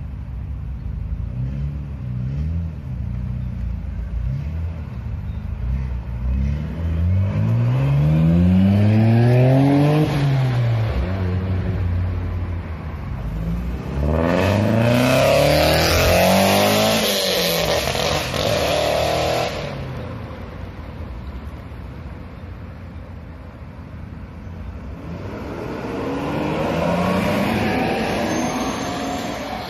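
Several cars driving off one after another, engines accelerating, their pitch climbing and dropping back several times as they shift up. The loudest pass comes about halfway through, and a quieter one near the end.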